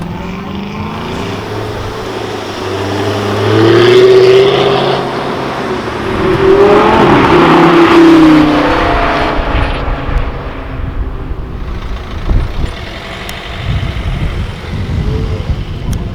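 Sports car engine accelerating hard, rising in pitch through two loud surges, then dropping away.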